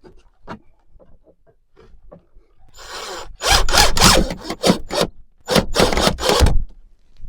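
Mahogany plank being worked by hand: a run of about eight quick, loud rasping strokes of a tool on wood, starting about three seconds in, after a few faint knocks.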